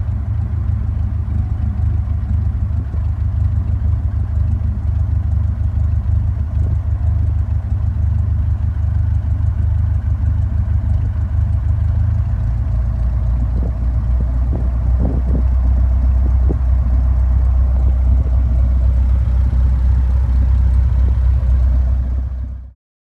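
Engine of a small single-engine high-wing plane running at low taxi power, heard as a steady low drone inside the cabin; it grows slightly louder past the middle and cuts off suddenly near the end.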